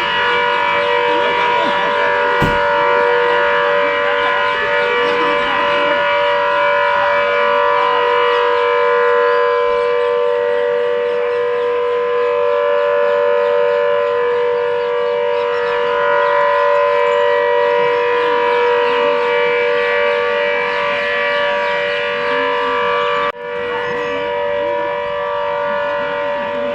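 Air-raid warning siren sounding continuously at a steady pitch, several held tones together, warning of an attack in a civil-defence drill. It breaks off for an instant near the end and carries on slightly quieter.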